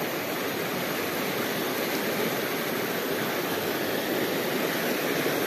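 Swift, muddy river current rushing steadily past rocks.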